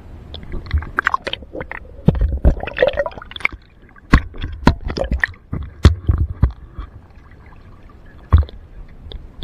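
River water splashing and sloshing in irregular bursts, with sharp knocks and low thumps close to the microphone, loudest about six seconds in.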